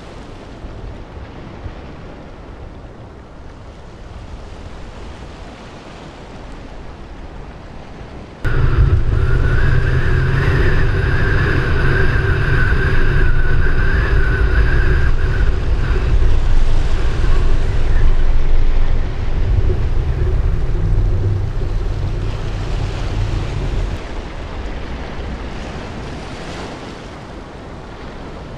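Wind rushing over a camera microphone in a vehicle under a storm, a lighter noise at first. About eight seconds in it jumps suddenly to a loud low rumble, with a steady wavering whine over it for several seconds, then slowly fades over the last few seconds.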